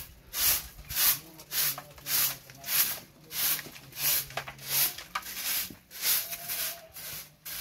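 Rhythmic rubbing or scraping strokes, evenly paced at nearly two a second, with a faint low hum under the first part.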